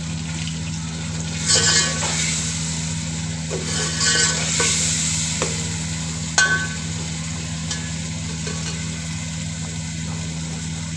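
Sliced onions and ground spices sizzling in hot oil in an aluminium pot, stirred with a steel ladle that scrapes and clinks against the pot a few times. A steady low hum runs underneath.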